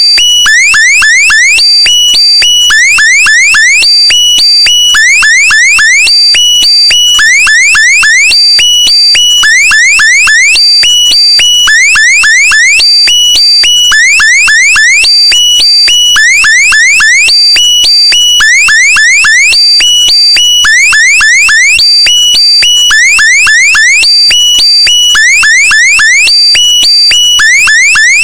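Loud electronic alarm-like sound effect on a loop: a cluster of quick rising chirps and short high beeps, repeating about every second and a quarter.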